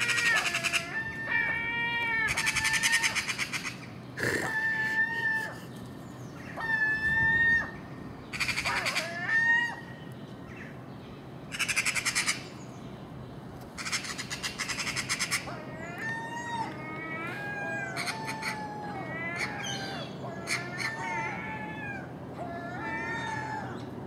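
Common gulls giving repeated mewing cries, interrupted by about six harsh, rattling bursts of chatter in the first fifteen seconds, then a quicker run of short calls.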